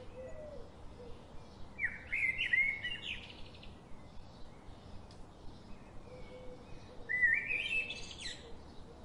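A bird singing a short phrase of rising, stepped whistled notes twice, about five seconds apart, over a steady low background hiss.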